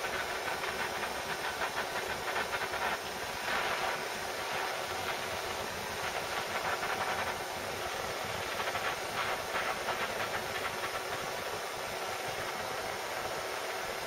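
Handheld gas blowtorch flame hissing steadily as it heats a powder-coated lead fishing weight to melt the coating to a shiny finish.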